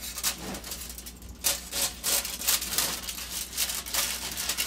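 Serrated bread knife sawing back and forth through a baked sponge cake, slicing off its top layer: a repeated rasping stroke about two to three times a second, with a short pause about a second in.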